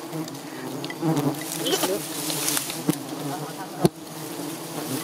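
A swarm of giant honeybees buzzing loudly in a steady dense hum, stirred up as their nest is being harvested. A single sharp knock comes a little before four seconds in.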